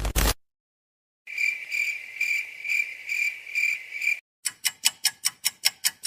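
A cricket chirping in a steady, high, pulsing trill, about two pulses a second, for about three seconds. Then a fast, even run of sharp ticks begins.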